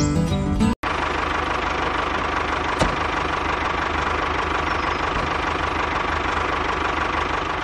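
Small DC hobby motor spinning a plastic cutter disc, running with a steady whine and a fast buzzing rattle. Music plays briefly and cuts off suddenly about a second in, before the motor sound.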